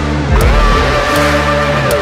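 Background music with a heavy electronic beat: deep, falling kick-drum thuds under held chords, with regular sharp high hits.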